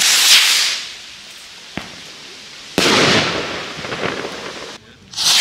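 Small firework rockets: one lifts off with a loud hiss that fades over about a second, a sharp pop follows, then a loud sudden burst crackles away over about two seconds, and another rocket hisses off near the end.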